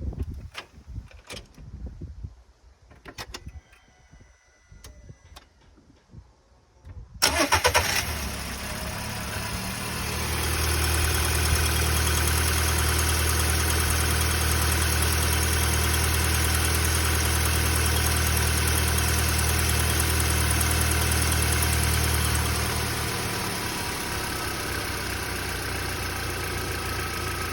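Audi A3 1.6 FSI four-cylinder petrol engine started from cold after a few clicks, then idling with a loud cold-start rattle, which the owner suspects comes from a tensioner. About 23 seconds in the running sound drops and quietens to a more normal idle.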